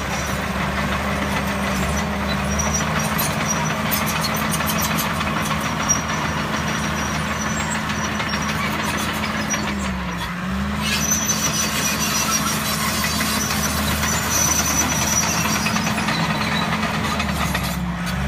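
The engine of a heavy earth-moving machine running steadily while grading ground. About ten seconds in its pitch sags briefly as it takes load, then recovers.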